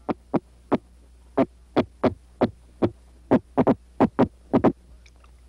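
Common sea robin grunting: a string of short, sharp knocks from its drumming swim bladder. The knocks are spaced irregularly at first, then come in quick pairs and clusters after about three seconds.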